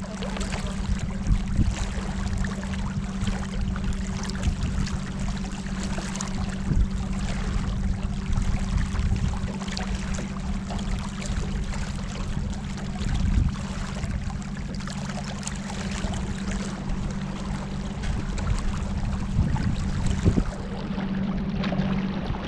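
Small boat under way on a river: water rushing and splashing against the hull, over a steady low motor hum.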